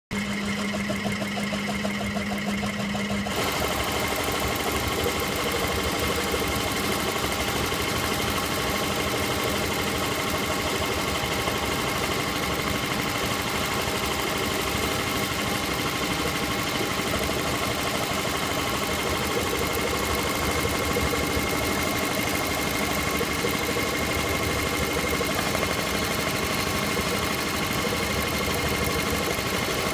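Multi-needle embroidery machine stitching lettering into a football boot: the needle bar runs a fast, steady stitch with a steady hum under it. The sound changes and fills out about three seconds in, then holds steady.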